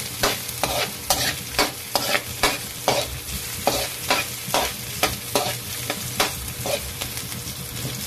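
Metal spatula scraping and knocking against a metal wok about two to three times a second while onion and ginger sauté, with a light sizzle of frying underneath.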